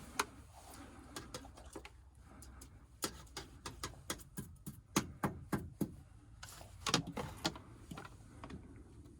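A series of irregular sharp clicks and light knocks, bunched together in the middle, from hands working with tools and containers at the heat pump's condensate drain.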